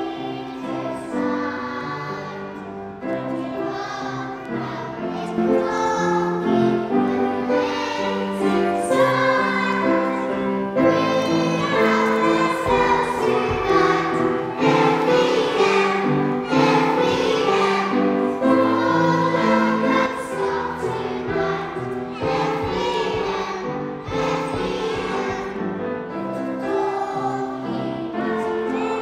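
Children's choir singing a song, growing louder about five seconds in.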